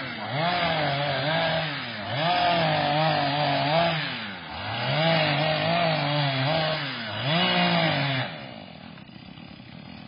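Chainsaw running in four long bursts of about two seconds each, its pitch wavering up and down within each burst, then dropping away about eight seconds in.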